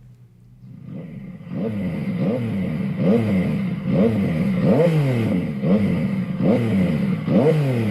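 Recording of a motorcycle engine being revved in repeated quick blips, played back. It fades in over the first second or so, then the pitch climbs and drops again with each blip, about every half second to second.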